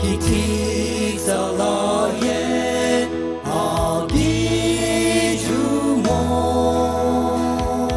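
A male vocal quartet singing a Christian song together, the voices gliding between notes over a steady, sustained low accompaniment.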